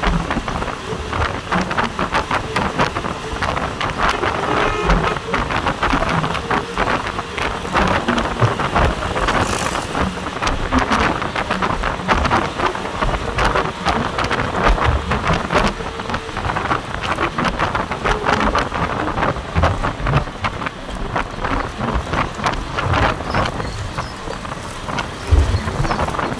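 Wind rushing through an open window and tyre noise from inside a moving vehicle on a concrete road, with a constant patter of small rattles.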